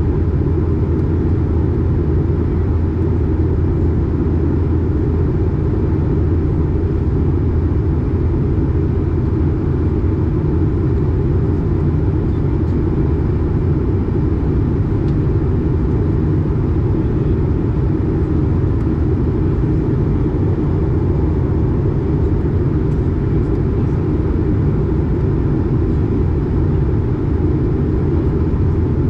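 Steady cabin noise inside an Airbus A220 on descent: an even low rumble from its Pratt & Whitney PW1500G geared turbofan and the airflow, heard from a window seat beside the engine.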